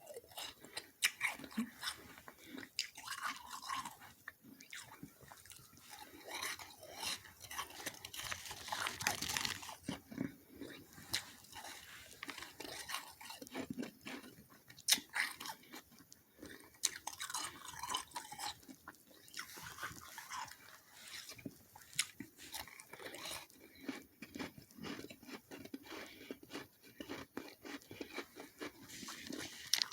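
Close-up chewing and biting of soft, slushy freezer frost: irregular crunching, a dense crackle of small clicks with some sharper bites.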